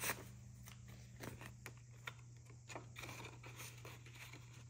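Soft rustling and light taps of paper banknotes being counted and tucked into a clear vinyl pocket of a cash binder, over a faint steady hum.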